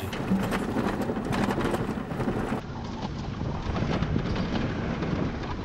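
Toyota 4x4 shaking and rattling over a corrugated gravel road: a dense rumble of tyre and road noise with fast rattles, the washboard surface making the whole car vibrate. The sound turns duller about halfway through.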